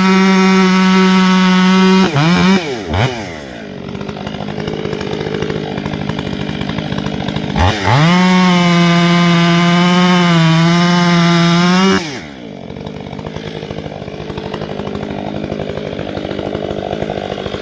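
Two-stroke chainsaw held at full throttle, dropping back to idle about two seconds in. It is revved up again near the middle and held wide open for about four seconds, its pitch sagging slightly partway through, then falls back to idle.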